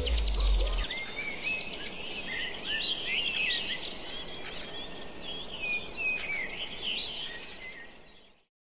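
The song's last low note dies away in the first second. Birds then chirp and sing over a rural background with insects, and the whole ambience fades out near the end.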